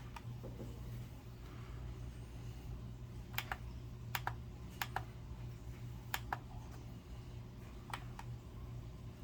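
Light, sharp clicks in five quick pairs, from trading cards being set down on and handled against a plastic digital food scale, over a low steady hum.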